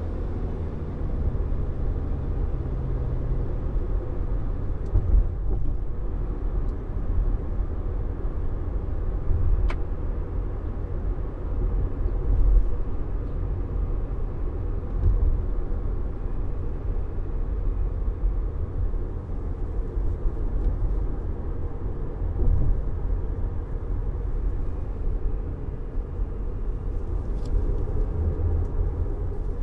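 2021 Subaru Forester's 2.0-litre e-BOXER flat-four mild-hybrid drivetrain under way on a country road, with steady low tyre and road rumble. The engine note eases off in the first few seconds, and there are a few faint ticks.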